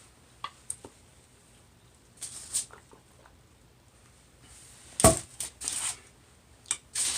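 Close-up eating sounds of a seafood boil: shrimp and crab being handled, peeled and chewed, with scattered clicks, wet smacks and rustles, the loudest a sharp crack about five seconds in.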